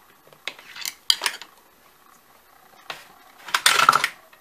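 Stitch-length regulator dial of a Singer sewing machine turned by hand to its maximum setting, giving scattered clicks and metallic clinks as the new regulator assembly is worked into its locked position. A louder burst of rattling clicks comes about three and a half seconds in.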